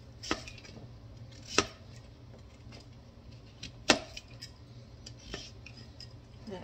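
Chef's knife slicing through acorn squash and knocking down onto a plastic cutting board: a few sharp, irregularly spaced knocks, the loudest about four seconds in.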